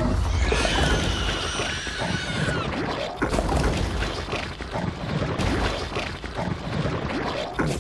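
Dense battle sound effects: an alien creature shrieking over repeated crashing impacts and low rumble, with music underneath.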